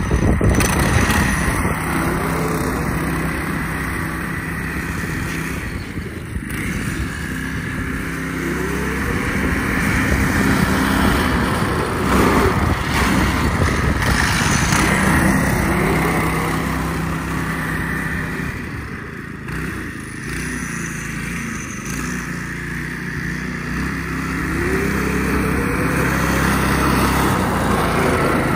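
Small gas engine on a homemade tracked snow sled running under load, its pitch rising several times as it is throttled up to pull the track, then settling back.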